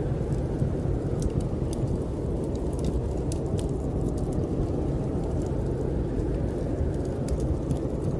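Snowstorm wind blowing as a steady low rumble, with the faint, scattered crackles of a wood fire burning in a fireplace.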